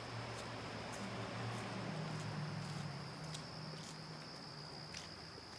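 Insects in vegetation: a steady, unbroken high-pitched insect drone. Under it runs a low hum that rises a little in pitch about two seconds in and fades out, and there are a few light clicks.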